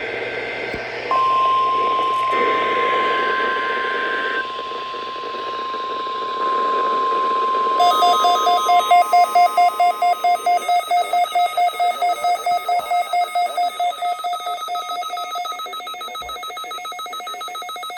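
NOAA Weather Radio's 1050 Hz warning alarm tone sounding steadily from about a second in during its weekly test, briefly joined by a higher tone. About eight seconds in, the weather radio receivers' own alert starts beeping fast, about four beeps a second. The steady tone stops near eleven seconds and the beeping carries on.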